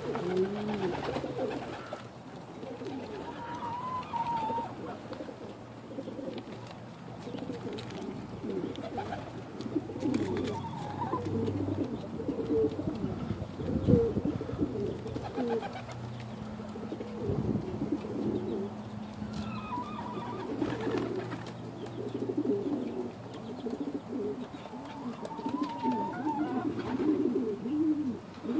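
A flock of domestic pigeons cooing, many wavering low coos overlapping with no break. A single sharp knock sounds about halfway through.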